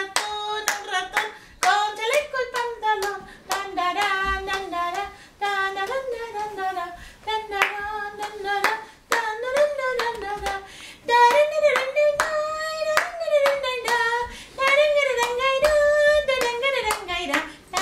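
Hands clapping a steady beat while a voice sings a lively tune along with it. The tune climbs a little higher about two-thirds of the way through.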